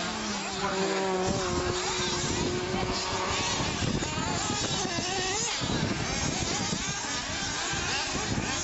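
Several radio-controlled off-road buggies' small engines buzzing and revving as they race, the pitch holding steady for about a second, then rising and falling as they speed up and brake.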